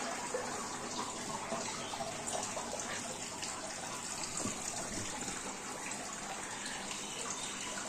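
Steady rushing, water-like noise.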